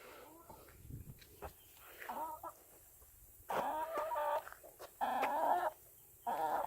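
Chickens clucking: a few faint clucks, then three louder calls in the second half, each lasting under a second.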